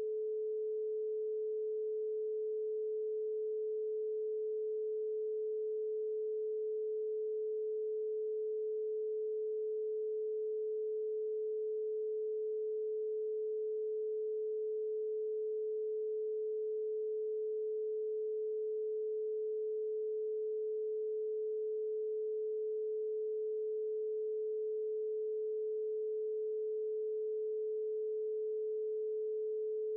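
A single steady, mid-pitched electronic sine tone, an alternative-healing brainwave-entrainment tone, held unchanged without any break.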